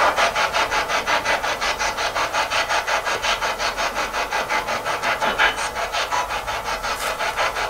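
Spirit box, a radio scanning rapidly through stations, sweeping: a steady, choppy hiss of static chopped into about six short bursts a second.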